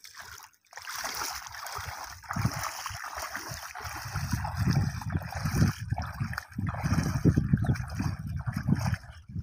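Water sloshing and splashing as a wader in chest waders walks through shallow water, with an irregular low rumble that grows louder about halfway through.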